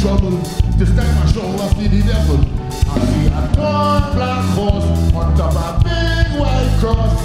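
Live calypso music: a band with a stepping bass line and percussion behind a male lead singer.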